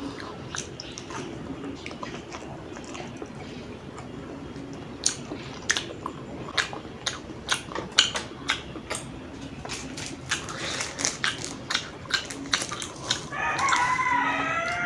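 Close-miked chewing of spicy instant noodles: wet mouth clicks and smacks, irregular and quick, thickening after about five seconds. Near the end a wavering, squealing pitched sound rises over it for about a second and a half.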